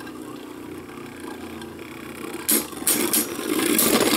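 Two Beyblade Burst tops, Obelisk Odin TX and Holy Horusid UC, spinning in a plastic stadium with a steady whir. From about two and a half seconds in they clash in several sharp clacks, then rattle louder against each other near the end.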